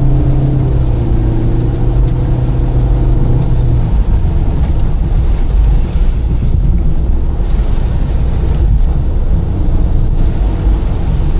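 Car driving at highway speed, heard from inside the cabin: steady road and tyre noise on a rain-wet road, with a low engine hum that drops away about three and a half seconds in.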